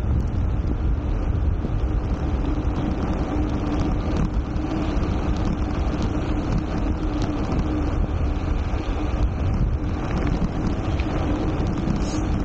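Wind rushing over an Insta360 ONE X2 action camera's microphone on a Garneau Garibaldi G2 gravel bike descending at speed, with tyre and road rumble: a steady low rumble with a constant hum running through it.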